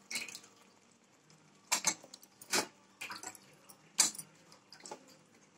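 Metal spoon clinking and scraping against a metal kadai while stirring raw chicken pieces into thick masala, giving a few sharp, spaced-out clinks.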